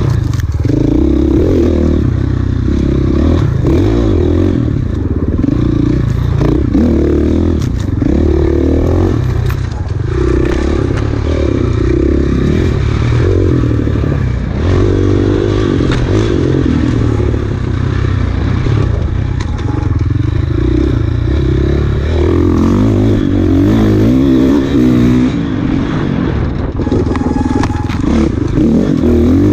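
Enduro dirt bike engine ridden hard, its revs rising and falling over and over as the rider accelerates and backs off along a rough trail, with clattering from the bike over the terrain.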